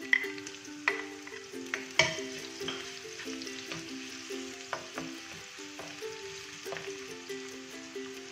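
Chopped onions sizzling as they hit hot oil in a wok and are stirred with a spatula, with sharp knocks of the utensils against the pan, the loudest near the start and about one and two seconds in.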